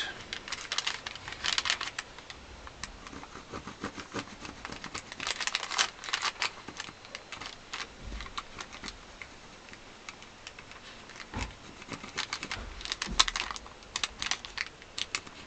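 Pencil scratching on baking paper in short runs of quick strokes, tracing an outline, with a few dull knocks in between.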